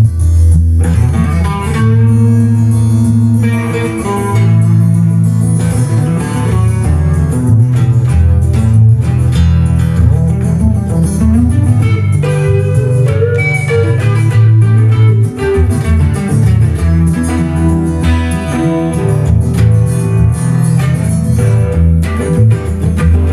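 Semi-hollow electric guitar playing a fusion-jazz melody, with a steady bass line underneath.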